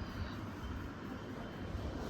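Pug snoring in its sleep, a steady low rasping sound.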